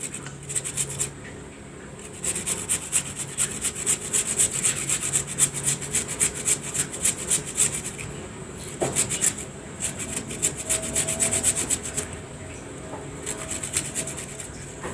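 Kencur (aromatic ginger) root being grated on a hand grater: rhythmic rasping strokes, about three a second, in runs broken by brief pauses.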